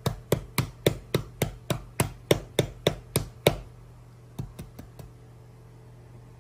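A hand knocking on a hard surface: about thirteen quick, evenly spaced raps over three and a half seconds, then four fainter taps about a second later.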